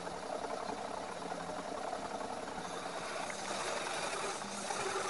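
A workshop power tool's motor running steadily.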